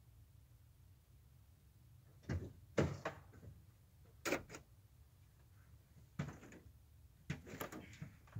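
A handful of short, sharp clunks and knocks in two clusters, about two to four and a half seconds in and again from about six to eight seconds: a pickup truck's cab door being worked.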